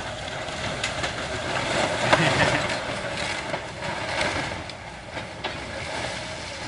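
Excavator demolishing a house: its engine runs under a steady crunching and clattering of breaking building material, loudest about two seconds in.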